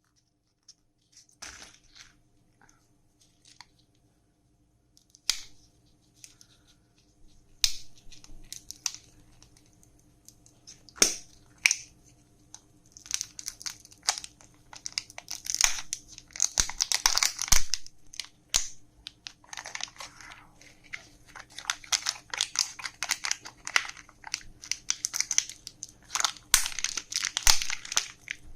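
Candy wrappers being handled and unwrapped: scattered crackles and clicks at first, then from about halfway on dense bursts of crinkling and tearing.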